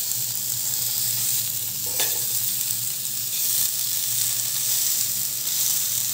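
Chicken legs sizzling as they pan-fry in butter in a nonstick pan over a medium flame, a steady hiss with a low hum beneath. There is a single light click about two seconds in.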